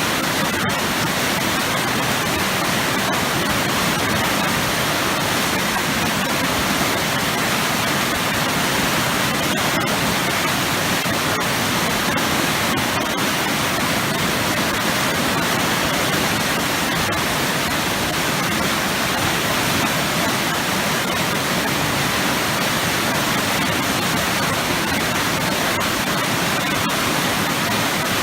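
Waterfall pouring into churning water, a loud, steady, unbroken rush.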